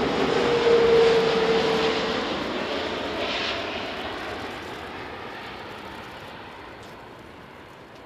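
Jet engines of an ANA Boeing 787-8 passing close by, loudest about a second in, with a slightly falling whine, then fading steadily as the airliner moves away.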